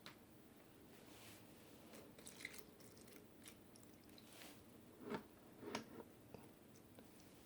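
Faint scattered clicks and small crackling knocks in a quiet room, with two louder ones about five and six seconds in.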